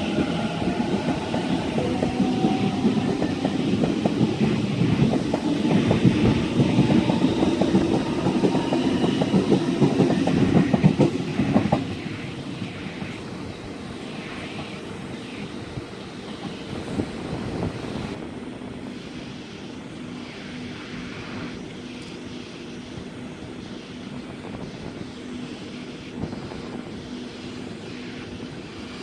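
A train passing close by, its wheels clattering rapidly over the rail joints, with a falling whine at the start. It is loud for about the first twelve seconds, then drops off to a quieter steady rumble as it draws away.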